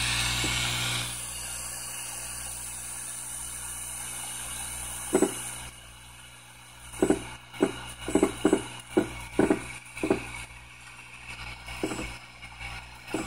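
Homemade pick-and-place machine built from an old 3D printer: a steady mechanical hum, then from about five seconds in a string of short buzzing moves as its stepper motors jog the pick-up nozzle in small steps over the circuit board.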